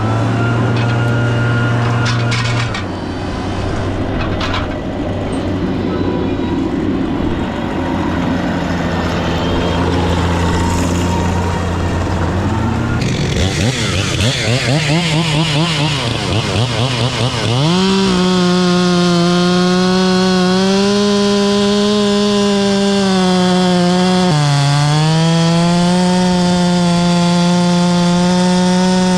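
Chainsaw engine revving up and down, then held at full throttle from a little past the middle, its pitch sagging once briefly under load as it cuts. Before that, a steady lower engine drone.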